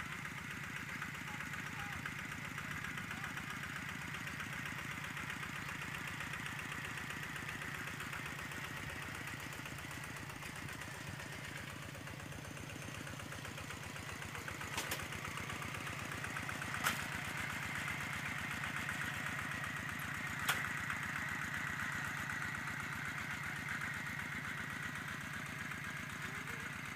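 Two-wheel walking tractor's single-cylinder diesel engine running steadily as it ploughs. Three short sharp clicks come in the second half.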